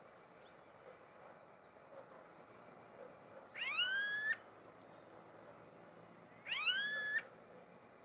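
Smooth-billed ani calling: two rising, whining calls, each under a second long, about three seconds apart.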